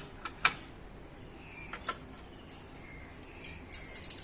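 Metal spanners clinking and clattering as they are handled: a few sharp clinks near the start, one near the middle, and a quicker run of clinks near the end.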